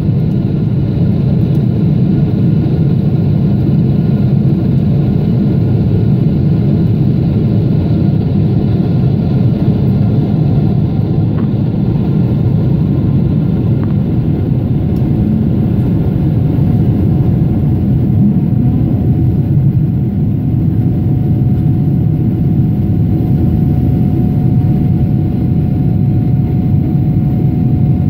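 Jet airliner cabin noise in flight: the steady low rumble of the turbofan engines and rushing air heard from a window seat beside the engine. A faint steady tone joins about halfway through.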